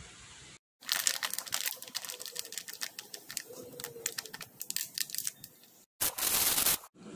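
A plastic spice packet crinkling and crackling in the hand as chili powder is shaken out of it, a quick irregular run of sharp clicks. Near the end, a short burst of aluminium foil being crumpled and pressed into an air fryer basket.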